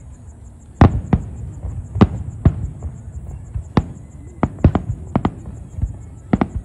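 Fireworks display going off in an irregular string of sharp bangs, about ten in under seven seconds, some in quick pairs, with a low rumble between them. The loudest bang comes just under a second in.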